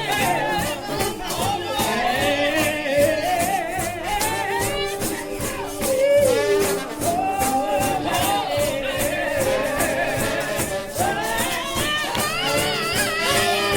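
Up-tempo gospel music: a wavering, vibrato-laden lead melody, singing or horns, over a fast, even shaking percussion beat.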